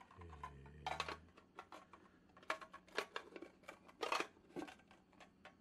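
Aluminium mess tin being worked down onto the mouth of another aluminium cooker, metal scraping and clicking against metal in short irregular bursts as it is pressed into a very tight fit.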